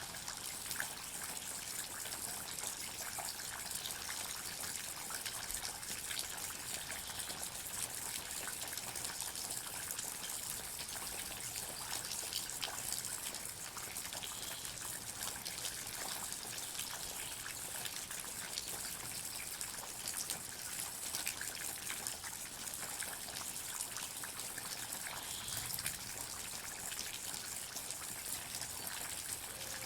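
Water dripping and trickling in a forest: a steady wash of many small drops pattering and ticking over a continuous trickling hiss.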